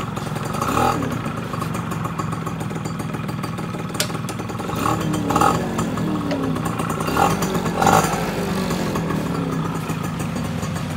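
Yamaha F1Z 110 two-stroke single-cylinder motorcycle engine idling steadily, revved briefly several times with the throttle, rising and falling in pitch. A single sharp click about four seconds in.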